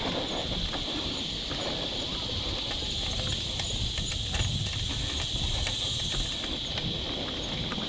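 Mountain bike riding fast along a dirt track, heard from the rider's own bike: a steady rumble of tyres and wind on the microphone, with scattered clicks and rattles from the bike and gravel. A constant high-pitched hiss sits over it.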